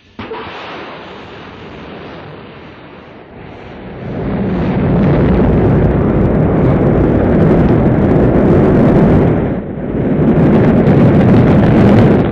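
Rocket engines igniting and lifting off: a sudden burst at ignition, then a deep rumbling roar that swells sharply about four seconds in and stays loud, with a brief dip near the end.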